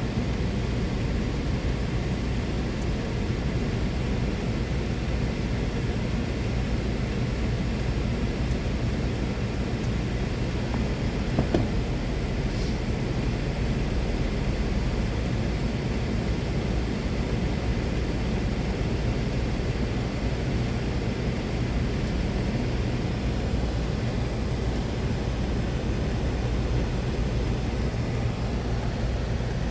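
A vehicle engine running steadily, heard as a low, even drone, with one short knock about eleven and a half seconds in.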